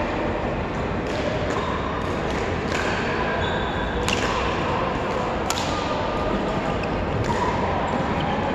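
Badminton rally: sharp racket-on-shuttlecock hits, the two clearest about a second and a half apart near the middle, with short squeaks of court shoes on the floor, over a steady background of hall noise.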